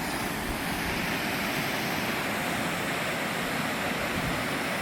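Waterfall roaring, a steady loud rush of falling water heard from the top of the falls.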